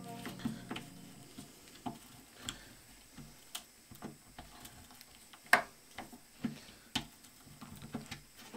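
Screw with a washer being driven by hand into a chipboard board with a screwdriver: sharp, irregular clicks and creaks, roughly one every half second to a second.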